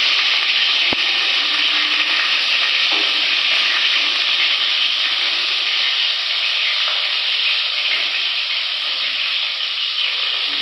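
Sliced onions frying in hot ghee: a steady sizzle that eases a little toward the end. One sharp click about a second in.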